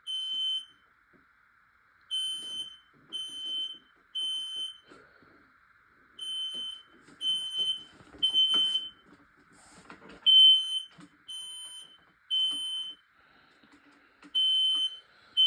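Smoke alarm sounding its temporal-three evacuation pattern: three high-pitched beeps, a pause of about a second and a half, then three more, repeating. It has been set off by canned test smoke.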